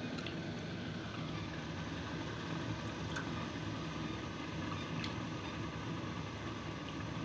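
Steady rushing hum of a steamer boiling hard on a lit gas burner, with steam pouring out of the open pot and a few faint clinks of metal.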